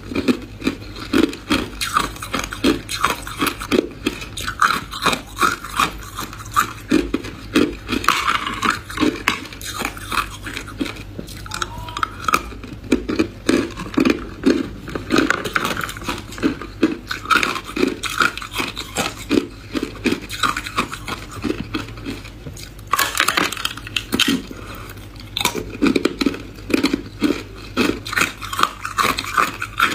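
Hard clear ice crunched between the teeth, close up, in quick repeated bites of about two to three a second, with a louder, sharper burst about three-quarters of the way through.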